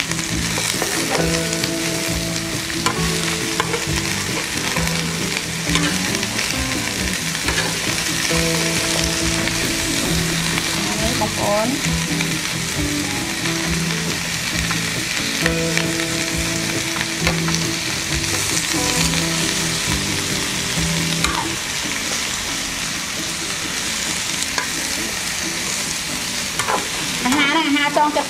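Chopped vegetables sizzling in a nonstick frying pan over a gas burner, stirred and turned with a metal spatula that now and then scrapes and taps the pan.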